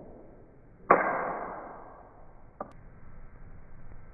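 Swiss Arms P-92 4.5 mm BB air pistol firing a single shot about a second in, a sharp crack that dies away over about a second. A faint click follows about two and a half seconds in.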